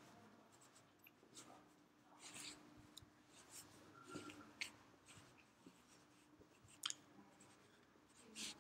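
Near silence on a phone line: a faint low hum with scattered soft clicks and rustles, the sharpest click about seven seconds in.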